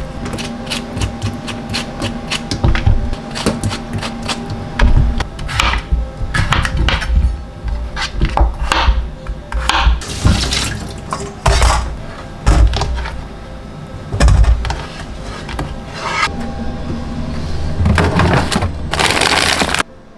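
Chef's knife chopping a peeled cucumber on a cutting board: a run of irregular knife strikes and thumps on the board, over light background music. Near the end comes a longer rustle of a plastic bag being handled.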